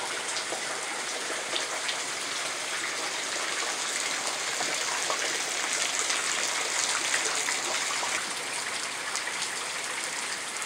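Steady rain falling, with scattered individual drops clicking close by.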